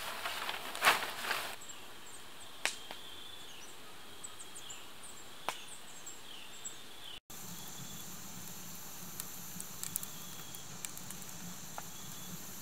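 Woodland ambience of chirping insects: short high chirps at first, then, after a cut about seven seconds in, a steady high cricket trill, with a few sharp pops throughout. A noisy rustle fills the first second or so.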